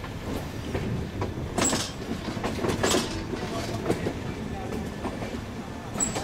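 A passenger train's coach wheels running over rail joints and points in a station yard: a steady rolling rumble broken by a few sharp, irregular clacks, heard from an open window or doorway of the coach.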